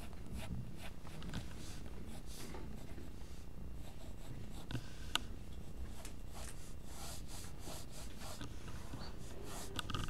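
Graphite lead in a clutch pencil sketching on paper: a series of short, light, scratchy strokes at an uneven pace. A single sharp click comes about halfway through.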